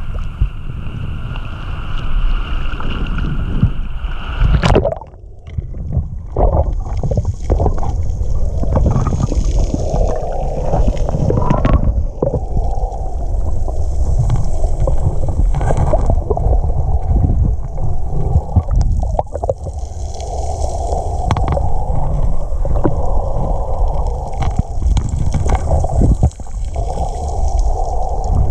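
Wind and lapping water at the surface, then a splash about five seconds in as the camera goes under. After that it is the muffled underwater sound of water sloshing and gurgling around the camera housing, with a low rumble and scattered small clicks.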